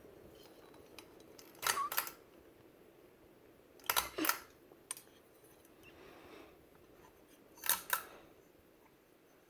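Three pairs of sharp mechanical clicks, each pair a quick double click, a few seconds apart, over a faint low hum.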